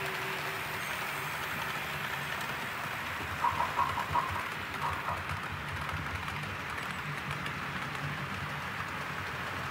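OO gauge model freight train running on the layout's track: a steady low rumble from the locomotive and hopper wagons rolling over the rails. About three and a half seconds in comes a quick run of four short high beeps, then one more a second later.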